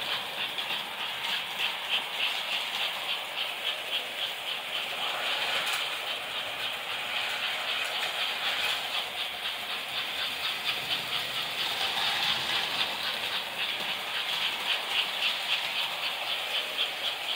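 American Flyer S-gauge toy trains running on sectional metal track: a steady rattling clatter of wheels, cars and motors with a fast, even clicking rhythm.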